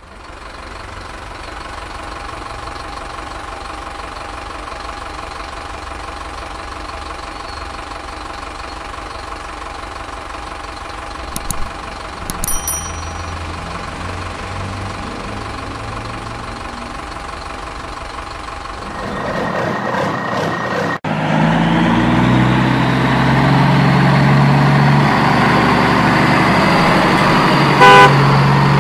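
Truck engine sound effect, growing louder about two-thirds in with a rising tone, then a short horn toot near the end. Before it there is a steady hum with a few short clicks near the middle.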